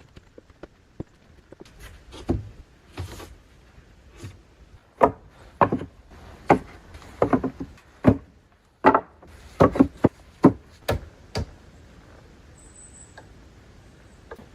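Irregular knocks and thuds of wood being worked, about fifteen of them unevenly spaced over some ten seconds, the loudest in the middle.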